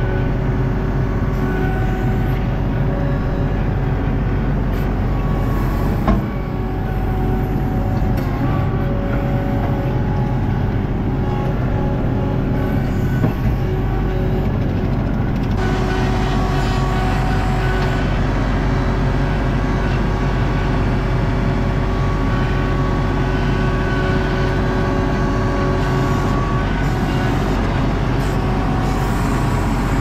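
Skid steer's engine running steadily under load as the machine is driven and its bucket worked, heard from inside the operator's cage, with a sharp knock about six seconds in and another about thirteen seconds in.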